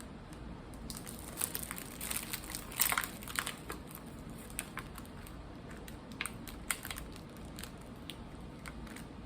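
A snack wrapper crinkling and crackling in scattered bursts as a cupcake is unwrapped, loudest about three seconds in.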